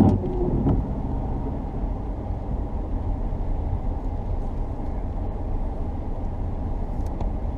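Vehicle driving slowly on a wet road: a steady low rumble of engine and tyres, with a sharp knock right at the start and a few faint clicks near the end.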